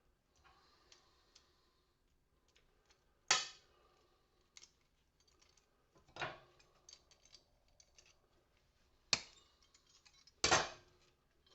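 Four sharp clinks with a short ring, about three seconds apart, among quieter clicks and rattles of small hard parts: porcelain lamp holders and their brass inner parts being broken apart and handled on a workbench.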